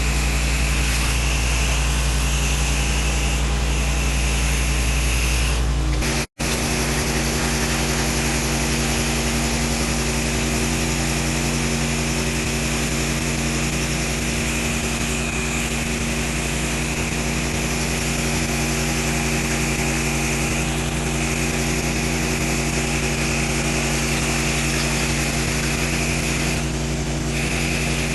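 Pressure washer rig running steadily, an engine drone under the hiss of water spraying. The sound cuts out for an instant about six seconds in, then resumes.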